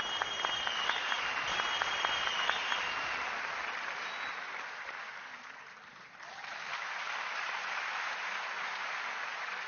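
Studio audience applauding, with a shrill held whistle over the first three seconds; the applause dips a little past halfway and then swells again.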